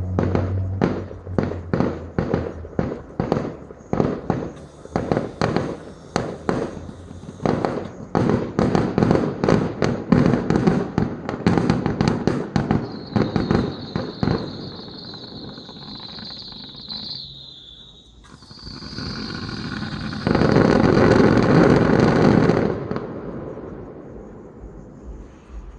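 Fireworks heard through a phone microphone: a fast string of sharp bangs, two or three a second, for the first dozen seconds, then a high wavering whistle for a few seconds. After that comes a dense burst, the loudest part, which then fades away.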